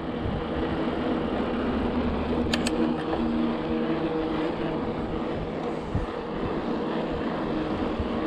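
Steady rush of wind and tyre noise from a bicycle rolling along a trail, with two sharp clicks about two and a half seconds in.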